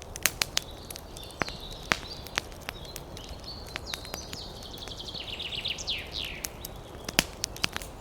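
Campfire crackling: burning wood gives irregular sharp pops over a low steady hiss. Birds sing in the background, with a run of quick downward-sweeping notes from about five to six and a half seconds in.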